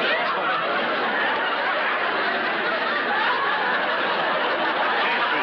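Sitcom audience laughter: many people laughing together in a long, steady swell.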